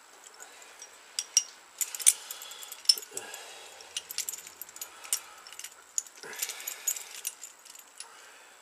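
Metal parts of a flywheel puller and its bolts clinking and scraping as they are handled and fitted together, with a scatter of sharp, irregular metallic clicks.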